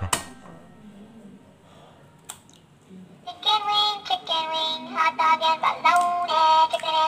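Background music: a quiet lull for about three seconds, then a high, synthetic-sounding singing voice comes in over the track.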